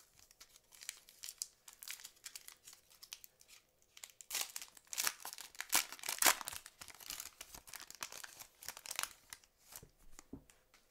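Silver foil wrapper of a 2006 Fleer Ultra football card pack being torn open and crinkled by hand: a crackly run of tearing and crinkling, loudest in the middle and thinning out near the end.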